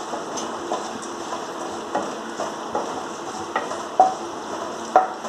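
Green chillies, curry leaves and ginger sizzling in hot oil in a nonstick kadai, being sautéed with a wooden spatula that taps and scrapes against the pan at irregular moments.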